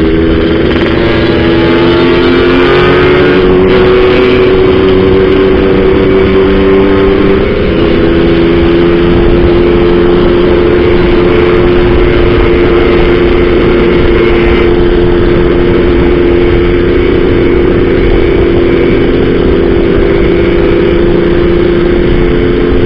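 Yamaha RXZ two-stroke single-cylinder engine running at a steady cruise under way, with wind and road noise over it. The engine note briefly dips about seven and a half seconds in, then holds steady again.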